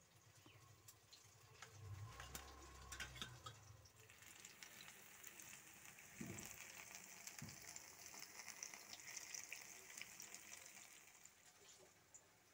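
Banana fritters deep-frying in hot oil in a wok: a faint sizzling crackle that builds a few seconds in, with a few light clicks before it.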